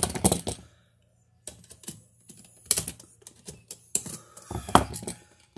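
Close, small clicks and rattles of a plastic-and-metal wall outlet and its wires being handled as the wires are worked under the screw terminals, coming in a few quick runs with short pauses between.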